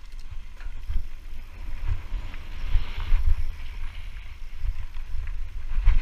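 Wind buffeting the GoPro's microphone as a mountain bike rides down a dirt trail: a steady low rumble, with tyres rolling over dirt and a few knocks from bumps.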